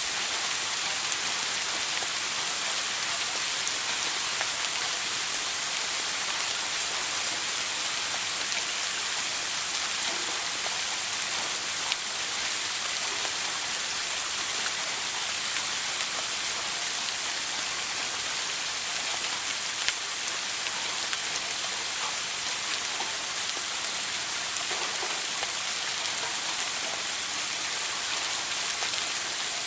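Shower water spraying and splashing down in a steady, unbroken hiss, with faint scattered drop ticks.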